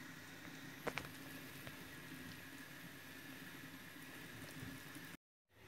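A stainless stock pot of pork at a steady boil, with a faint, even bubbling hiss under a layer of foam. There is a single light tap about a second in, and the sound drops out briefly near the end.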